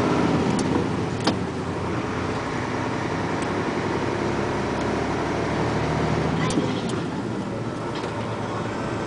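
Steady engine and road noise of a moving car heard from inside the cabin, with a few sharp clicks.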